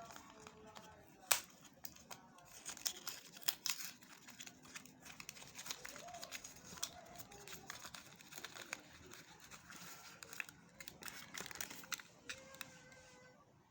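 Packaging being handled during an unboxing, crinkling and tearing in quick, irregular crackles, with one sharp crack about a second in.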